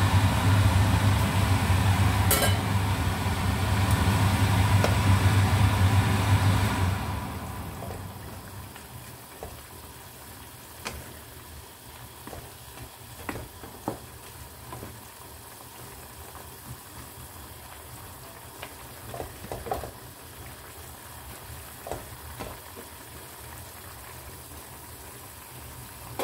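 A steady mechanical hum with a strong low drone runs for about the first seven seconds, then falls away. After that, pork ribs and lotus root slices simmer softly in broth in a pan, with light clicks and knocks from a wooden spatula stirring them.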